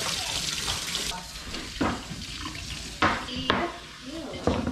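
Kitchen tap running onto a cucumber being rinsed in a steel sink, stopping about a second in. Then a few sharp knocks of a chef's knife slicing cucumbers on a wooden cutting board.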